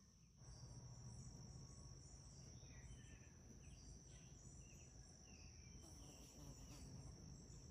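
Faint garden ambience: insects trilling in one steady high drone, with short chirps scattered through over a low background rumble.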